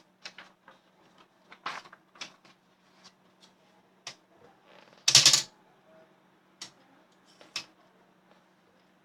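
Olympia SM7 manual typewriter mechanism clicking and clacking irregularly, with about a dozen sparse, separate strokes rather than a steady typing rhythm. One louder, longer rasping clatter of about half a second comes a little after five seconds in.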